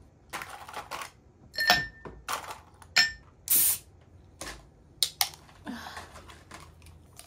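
An aluminium drink can being handled and opened: a series of sharp metallic taps and clicks, some with a short ring, as the ring-pull tab is worked and cracked open, with a short fizzy hiss of escaping gas about three and a half seconds in.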